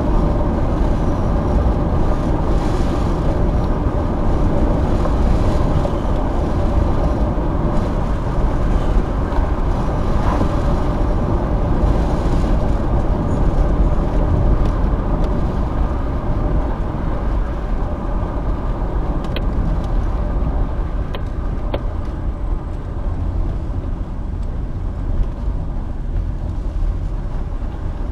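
Steady engine and road noise of a moving car, heard from inside the cabin, with a few faint clicks about two-thirds of the way through. The rumble eases a little near the end.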